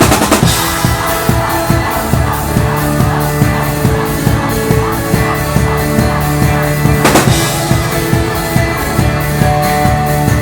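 Live band playing an upbeat worship song, the drum kit prominent with a steady driving beat under sustained bass and chord tones, and a cymbal crash about seven seconds in.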